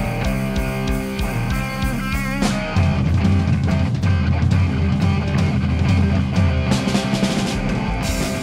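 Live rock band playing an instrumental passage on distorted electric guitars and drums. About two and a half seconds in, the playing shifts into a heavier, bass-heavy riff with crashing cymbals.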